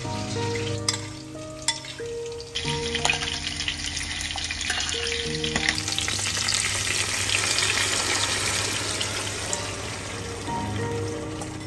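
Salmon fillets frying in a pan, sizzling steadily, the sizzle growing louder about two and a half seconds in as a sauce is poured into the hot pan. A simple tune of background music plays throughout.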